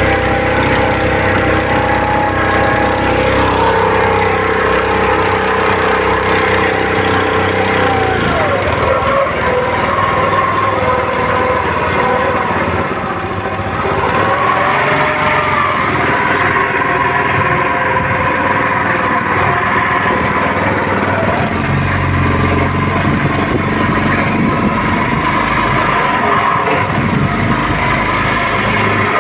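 Small Honda GX four-stroke engine driving a boat's propeller shaft, running steadily under load. Its note changes about eight seconds in, and the low hum strengthens again a little past twenty seconds.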